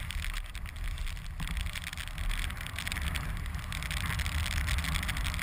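Skis running through deep powder snow, a steady hiss of spraying snow, over a low wind rumble on the pole-mounted camera's microphone.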